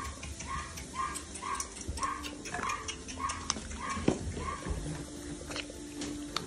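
American bully puppies eating dry dog food: rhythmic chewing, about three chews a second, with sharp clicks of kibble crunching and a single sharper knock about four seconds in.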